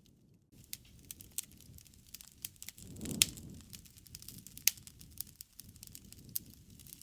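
Wood campfire crackling, with many sharp pops over a low rumble of burning. The sound drops out for a moment at the start, the fire swells about three seconds in with the loudest pop, and another strong pop follows a second and a half later.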